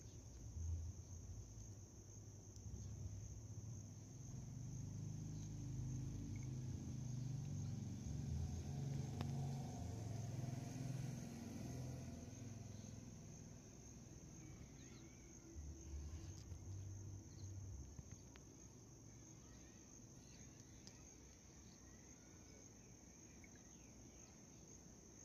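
Crickets trilling in one steady, unbroken high note. A low rumble under it swells over the first half and fades away about two-thirds of the way through.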